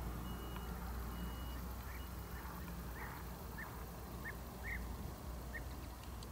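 Faint, distant reversing alarm beeping about once a second, stopping about two seconds in, followed by a string of short chirping bird calls, over a low steady rumble.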